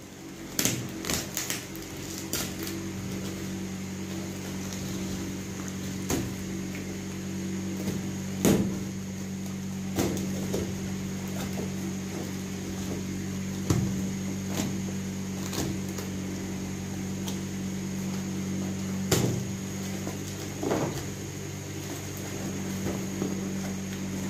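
A taped cardboard box being cut and pulled open: the packing tape and cardboard give sharp crackles, tears and knocks every few seconds. A steady low hum runs underneath.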